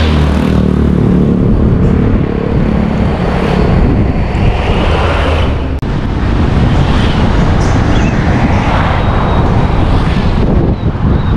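Steady wind and road noise from a camera at a moving Mitsubishi Pajero Sport's open sunroof. A large truck's engine hum fades out as it passes in the first half second, and the sound drops out for an instant about halfway through.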